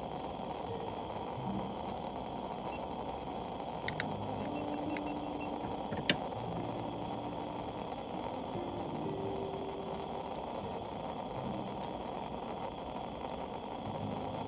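Gasoline pressure burner running with a steady, low roar after being lit, with two sharp clicks about four and six seconds in.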